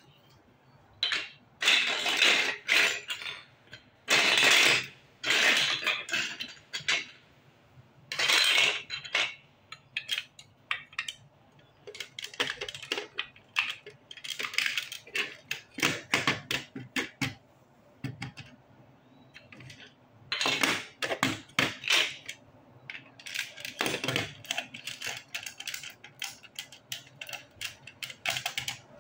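Large plastic Lego bricks clattering and clicking as hands rummage through a loose pile and fit bricks together. The sound comes in irregular bursts of rattling with short pauses between them.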